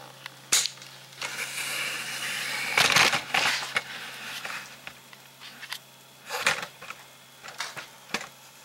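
Handling noise as the camera is moved and repositioned: rustling and a few sharp knocks, the loudest about three seconds in, over a faint steady hum.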